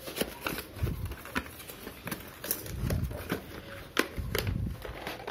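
Hands prying open and handling a small cardboard product box: irregular clicks and scrapes of the paperboard flaps, with a few dull bumps.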